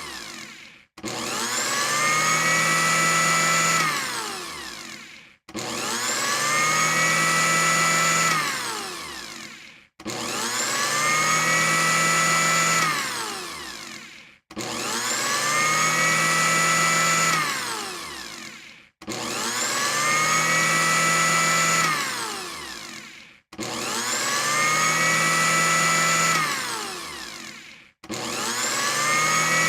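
Electric blender motor pureeing in repeated pulses: each time it spins up to a steady high whine, runs for about two seconds, then is switched off and winds down in falling pitch. The cycle repeats about every four and a half seconds.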